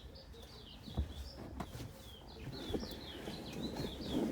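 Birds chirping: a quick run of short high chirps. A sharp knock about a second in and a few softer clunks of handling beneath.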